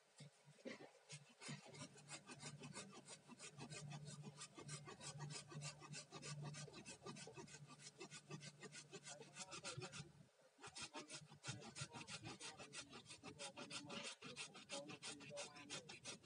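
Small hand pruning saw cutting bamboo at the base of the clump, in quick, faint back-and-forth strokes, several a second. The sawing pauses briefly about ten seconds in, then carries on.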